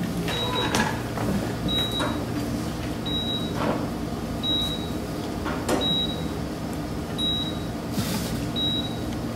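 Hospital heart monitor sound effect: a short, high beep repeating about once a second, over a steady low hum.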